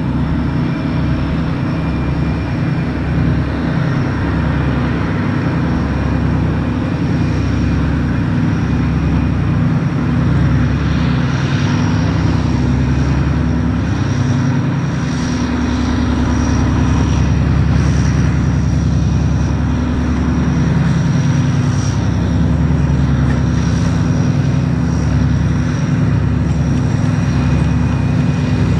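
Diesel engines of a pair of 2TE10-series locomotive sections (10D100 two-stroke opposed-piston diesels) working under load as they haul a freight train. A deep, steady engine drone that grows somewhat louder as the locomotives approach.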